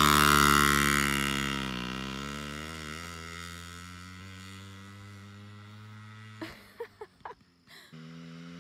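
Small mini dirt bike engine pulling away from a standing start, loud at first and fading steadily as the bike rides off, its note wavering about two seconds in. A few short knocks come near the end, then the distant engine is heard again.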